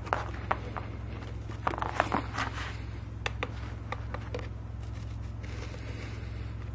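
Light clicks and knocks from the plastic base and housing of a vapor steamer being handled as its rubber foot pads are pressed on and the unit is turned upright, with a denser run of knocks about two seconds in.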